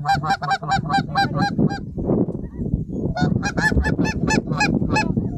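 Goose honks in two quick, evenly spaced runs of about four a second, with a pause of about a second between the runs, over a low rumble.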